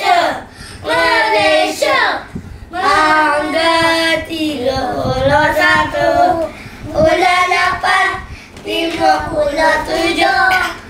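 Young children singing together without instruments, in phrases of a few held notes with short breaks between them.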